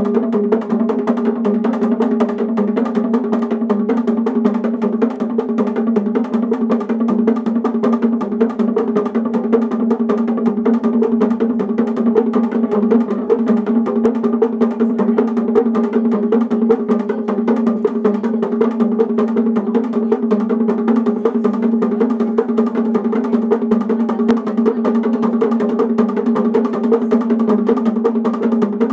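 Tuned bongo drums struck with thin sticks by several players at once, a fast, even, unbroken stream of interlocking strokes repeating a pattern on a few fixed pitches.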